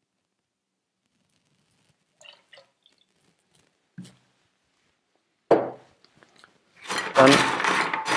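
Cocktail bar tools being handled on the bar: a few faint clinks, a small knock, then a sharp, loud knock about five and a half seconds in. A louder, dense clatter starts near the end.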